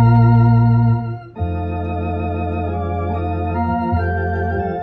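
Electronic keyboard on an organ voice playing a slow hymn in long held chords. The chord changes about a second in, with a brief dip in level, and again near the end.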